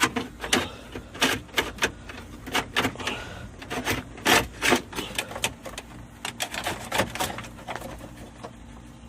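Coat-hanger wire with a video cable attached being pulled up through a vehicle dashboard: a run of irregular clicks, scrapes and rattles.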